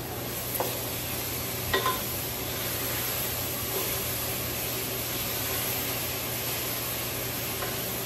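Food frying in a pan with a steady sizzle. A metal utensil clinks against the pan a few times, loudest with a short metallic ring about two seconds in.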